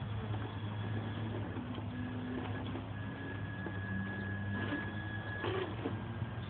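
Axial SCX10 radio-controlled rock crawler's electric motor and gear drivetrain whirring at crawl speed as it climbs over rocks, the whine shifting in pitch, over a steady low hum. A brief clatter comes about five and a half seconds in.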